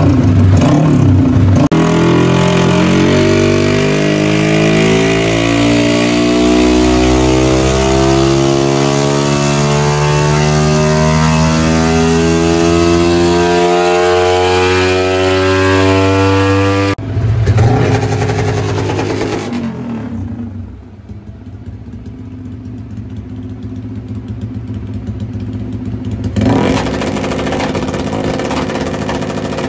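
Modified Yamaha X1R motorcycle with an aftermarket exhaust doing a full-throttle pull on a roller dyno: the engine note climbs steadily in pitch for about fifteen seconds. The throttle then shuts suddenly and the engine drops to a lower, quieter drone, growing louder again near the end.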